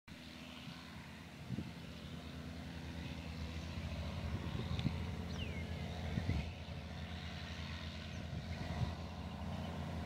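Sugarcane harvester's diesel engine running steadily while it cuts cane, with a haulout truck beside it, the drone slowly growing louder. A short falling whistle sounds about five seconds in.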